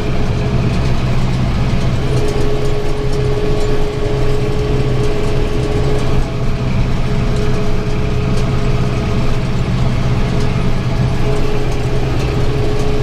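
Farm tractor engine running steadily under load while driving a round baler that is picking up a windrow and building a bale. A steady higher whine joins the hum about two seconds in, drops out around the middle, and returns near the end.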